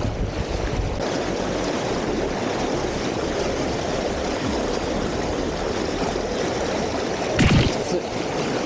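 Fast, strong river current rushing and churning, with white water splashing around a towed ayu bait box close by. A brief louder thump or slap about seven and a half seconds in.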